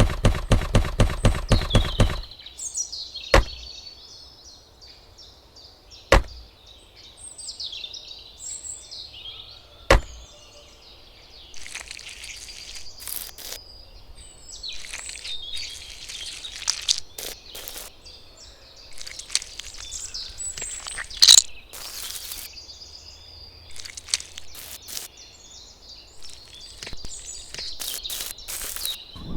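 Birds chirping in short high calls, over faint outdoor background noise, with a few sharp clicks; a fast run of clicks fills the first two seconds.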